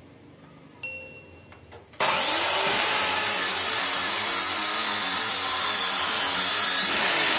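A short electronic chime about a second in, then about two seconds in a circular saw starts suddenly and runs loudly and steadily, its blade cutting through a pine board.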